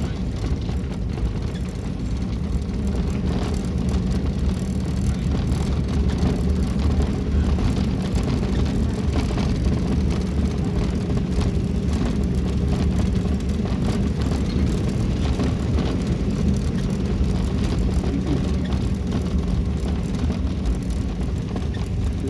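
Vehicle engine running steadily with tyre and road noise as it drives along a brick-paved driveway, heard from inside the cabin.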